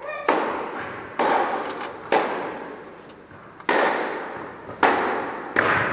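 Tennis rally: a ball struck hard by rackets six times, roughly a second apart, each crack ringing out in the hall's echo.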